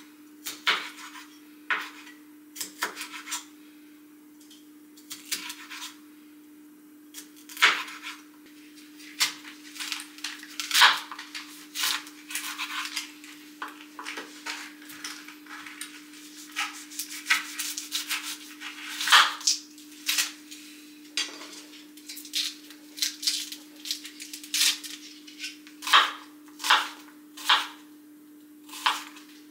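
Kitchen clatter: dishes, pots and utensils knocking and clinking in irregular bursts over a steady hum.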